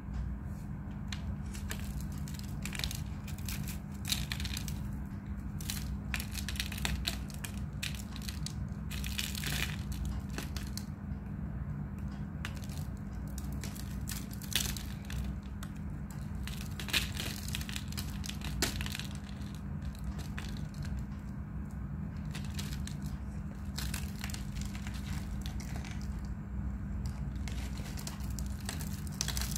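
Lumps of chalk crushed and crumbled between the fingers: irregular dry crunches and crackles. A steady low hum runs underneath.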